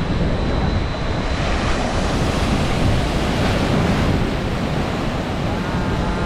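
Waves breaking and washing in a surf wave pool, with wind buffeting the microphone. The hiss of the water swells about a second and a half in and eases off about four seconds in.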